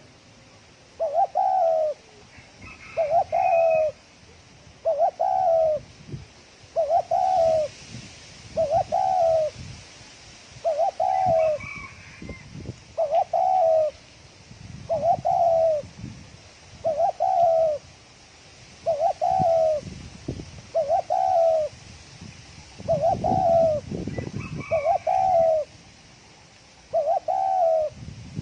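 Spotted dove cooing in a fast, steady series of short phrases, about one every two seconds. This is the rapid 'còi' cooing style kept by Vietnamese dove keepers to provoke rival wild doves.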